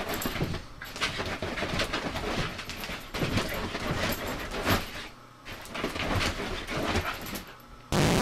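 A dog spinning round and round on a bed, its paws and body scrabbling and rustling the quilt in a quick irregular run of scratches and rustles, with a brief loud burst at the very end.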